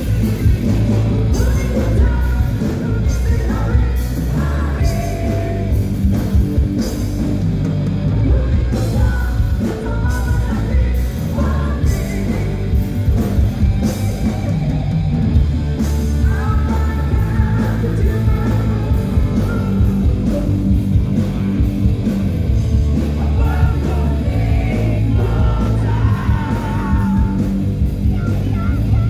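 Live heavy metal band playing loud, with electric guitar, bass and drums and a singer over it, heard from the crowd.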